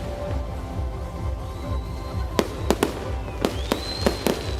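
Fireworks display: a quick run of about seven sharp bangs from about halfway through, with a whistling shell rising in pitch and then holding near the end, over a steady low rumble and music.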